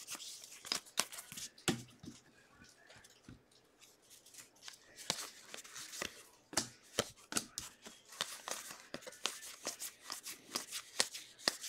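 Glossy trading cards being flipped through by hand: a string of light clicks and slides as each card is moved from the front of the stack to the back, with a short pause about two seconds in.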